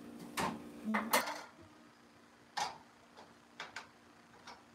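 Kitchen utensils clattering and clinking against dishes and a pan: a quick cluster of knocks in the first second or so, then a few separate clicks. A low steady hum stops about a second and a half in.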